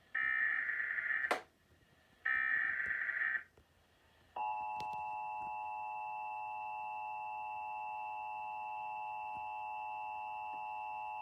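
Emergency Alert System test signal: two short bursts of buzzing digital SAME header data, then, from about four seconds in, the long steady EAS attention tone.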